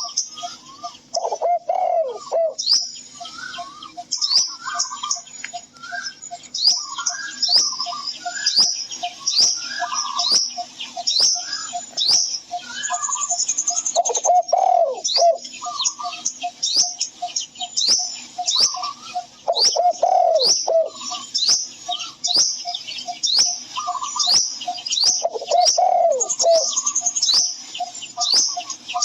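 Birdsong: many small birds chirping with rapid, high, downward-sweeping notes, and a dove cooing four times, about every six seconds.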